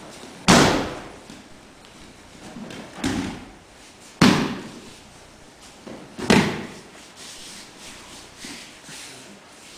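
Breakfalls on gym mats during aikido throws: a body slapping down onto the mat in loud, sudden thuds, about half a second in, again around four seconds and around six seconds, with a smaller one near three seconds. Each thud echoes briefly in the hall.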